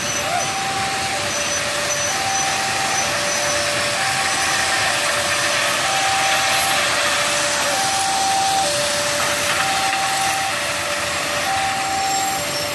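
Ballast-train hopper wagons rolling past close by while they drop ballast stone onto the track, making a steady, dense rushing rattle. Over it a level-crossing warning alarm sounds, alternating a higher and a lower tone of about a second each.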